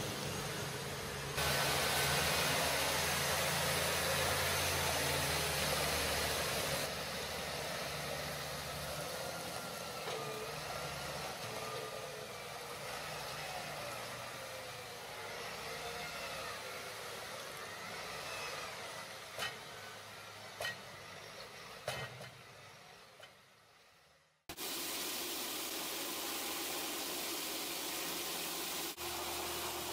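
Engines of street-sweeping machines running, with the steady hiss of rotating sweeper brushes, changing abruptly several times. Near the end the sound fades out and cuts to silence for a moment, then the running resumes.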